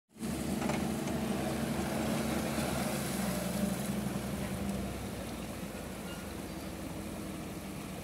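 Diesel engine of a wheeled excavator running steadily while the arm and bucket work, louder for about the first five seconds and then settling a little lower, over a steady rushing hiss of water.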